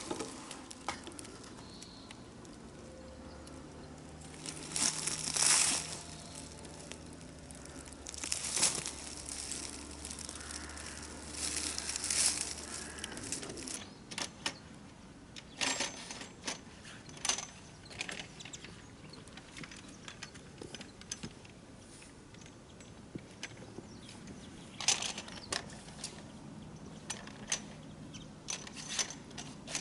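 Irregular clicks, clatters and rustles of fishing gear being handled and a metal rod rest being set up on a stony bank. A faint low hum runs under the first half.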